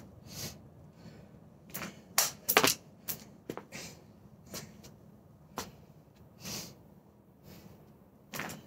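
Irregular clicks and knocks from a jump rope being handled: the cord and plastic handles clattering and the rope slapping the porch deck, loudest a couple of seconds in.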